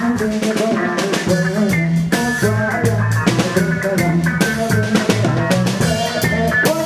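Reggae band playing live: drum kit and electric bass in a steady groove.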